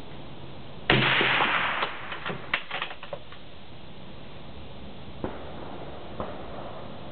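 A single shot from a Howa rifle in .243 Winchester fitted with a sound moderator, about a second in, followed by a dense echo and several sharp cracks of reverberation over the next two seconds. Two clicks come a few seconds later.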